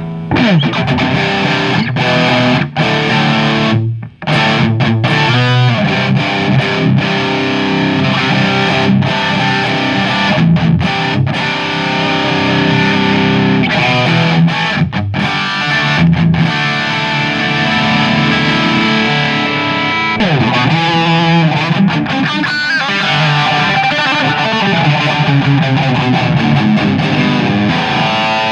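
Distorted electric guitar riffing through a Marshall JCM 2000 tube amp's red overdrive channel into a Marshall MG 4x12 cabinet, with no pedal. Every setting sits at noon and the gain is a little past noon, giving the amp's own baseline crunch. Heavy chords ring out continuously, broken by a brief stop about four seconds in.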